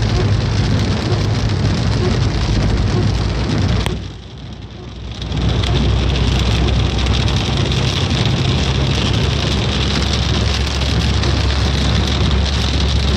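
Rain falling as a steady hiss, with a low steady hum beneath it. The sound drops away briefly about four seconds in, then comes back.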